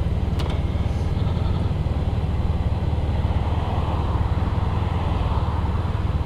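Motorcycle running: a steady low engine rumble with a hiss of wind and road noise over it, and a light click about half a second in.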